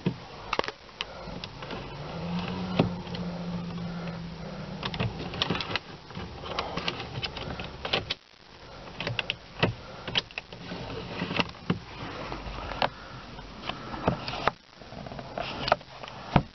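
Plastic clicks and knocks from the pop-out dashboard cup holder of a BMW 3 Series being pulled out, handled and pushed back, with a low steady hum for a few seconds near the start.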